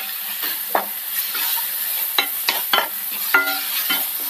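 Wooden spatula stirring and scraping a thick onion-tomato masala around a non-stick pan, which sizzles steadily as it fries on medium heat. Irregular scrapes and knocks against the pan come about every half second, a few of them ringing briefly.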